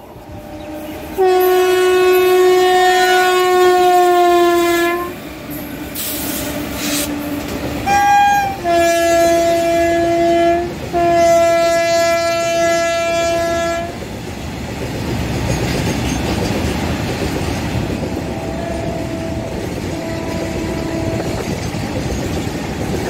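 Train horn sounding a series of long blasts, the first about four seconds long, with a short higher-pitched toot in between, over roughly the first fourteen seconds. Then the rumble and wheel clatter of a long freight train of tank wagons rolling past, with faint horn toots again later.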